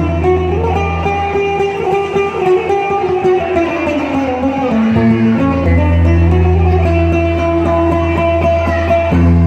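Instrumental passage of a song with no singing: a melody played over held low bass notes. The bass drops away for a few seconds in the middle and then comes back.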